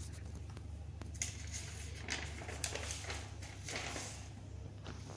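Quiet room tone: a steady low hum with a few short, soft rustling noises scattered through it.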